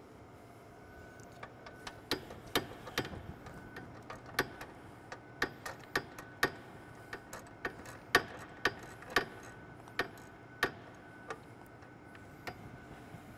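Socket ratchet on a long extension loosening the engine computer's (PCM's) mounting bolts: a run of sharp, irregularly spaced ratchet clicks, about two a second, starting about a second in and stopping near the end.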